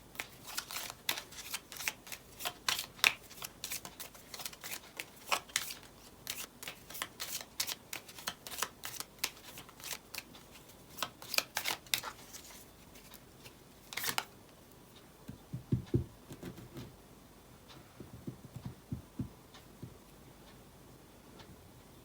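A deck of cards being shuffled by hand: a rapid run of card flicks and riffles for about twelve seconds, then one sharper snap, followed by a few soft low thumps.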